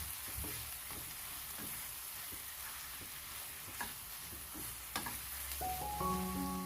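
Food sizzling as it fries in a pan, stirred, with occasional sharp clicks of a utensil against the pan. About five and a half seconds in, a few steady musical notes come in over it.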